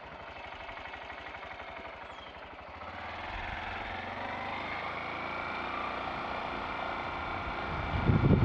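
Motorcycle engine running at low speed, its firing pulses even, then pulling harder with a slowly rising pitch from about three seconds in. A loud low rumble comes about eight seconds in.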